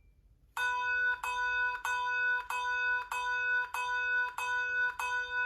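Electronic practice handbell ringing a bronze-handbell note eight times in quick, even succession, about one and a half notes a second, all on the same pitch: short notes, each re-triggered as the bell is tilted forward and brought back vertical.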